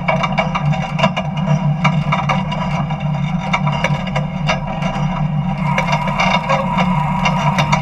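Jet truck's engine running steadily at low speed as the truck rolls slowly, with frequent ticks and rattles over it.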